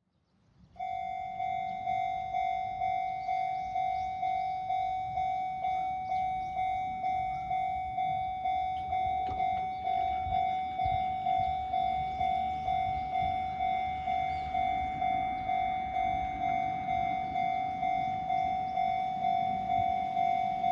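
Japanese railway level-crossing alarm starting up about a second in, then ringing its electronic bell in an even, pitched 'kan-kan' at about two strokes a second, over a low background rumble.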